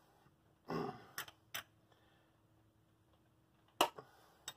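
A handful of sharp metallic clicks and a short scrape from a wrench working on the governor arm's clamp nut as it is tightened to set the governor, with quiet between.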